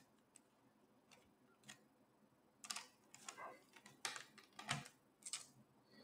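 Faint, scattered clicks and light scrapes of a small screwdriver turning out the retaining screw of a laptop's NVMe drive. The clicks are sparse at first and come more often from about two and a half seconds in.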